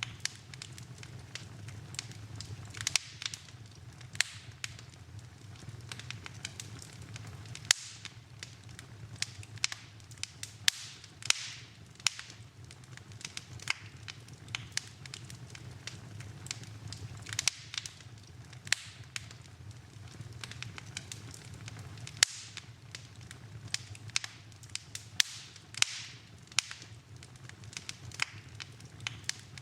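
Fireplace fire crackling, with irregular sharp pops and snaps, a few much louder than the rest, over a steady low hum.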